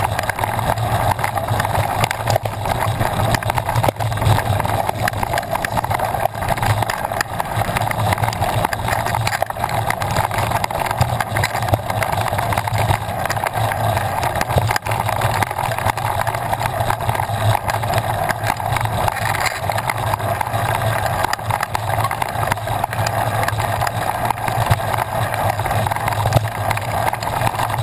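Steady rumble and rattle of a mountain bike being ridden over a dirt trail: tyres on loose, sandy ground, a constant clatter of small knocks, and wind on the microphone.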